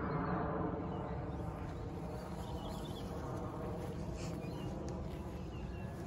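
Birds chirping a few times over a steady low drone with an even pitch, which is loudest at the start and slowly fades.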